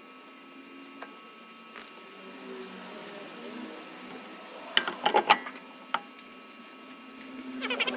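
Steady faint background hum, with a short burst of sharp clicks and chirps about five seconds in, and a small bird twittering rapidly near the end.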